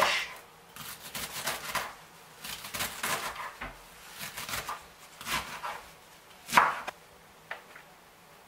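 Chef's knife chopping waterleaf stalks and leaves on a bamboo cutting board: a quick run of sharp strikes, the loudest about six and a half seconds in, after which the chopping stops.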